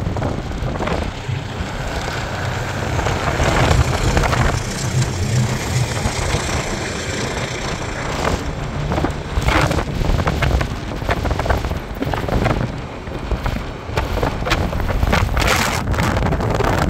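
Road noise of a moving car, with wind buffeting the microphone in uneven gusts.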